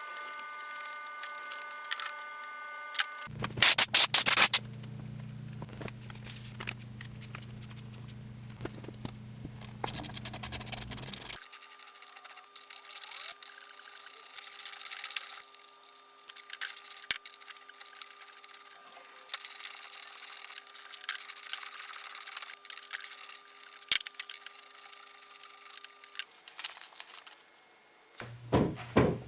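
Irregular scraping and rubbing of hand tools on metal over a steady electrical hum, with the hum changing abruptly several times.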